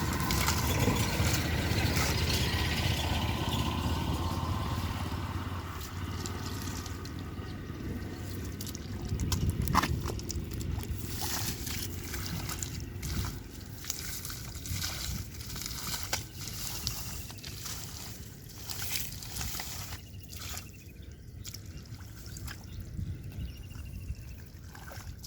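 Shallow water sloshing and trickling, with many short splashes and knocks, as fish are caught by hand in a muddy pond. A steady low hum runs under the first several seconds and then fades.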